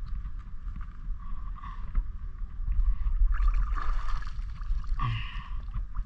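Seawater splashing and streaming off a fishing net as it is lifted and shaken out of the water, loudest a little past the middle, over a steady low rumble.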